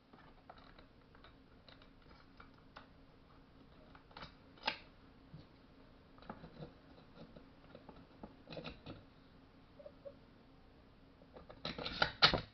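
Scattered light clicks and knocks of tools and small metal and plastic parts being handled while a chainsaw is reassembled, with a louder burst of clatter near the end.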